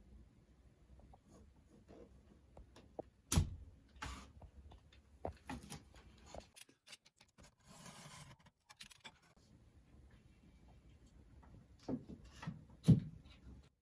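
Scattered knocks and clicks of building materials and hand tools being handled, with a louder knock about three seconds in and two more near the end, and a short hiss of something sliding or rubbing midway.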